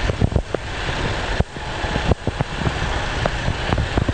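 Heavy articulated truck's diesel engine running low and steady as the lorry creeps through a tight turn, with scattered short, sharp crackles over it.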